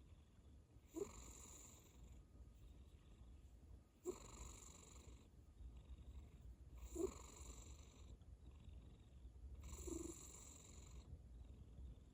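A sleeping cat snoring softly, one breath about every three seconds, four in all.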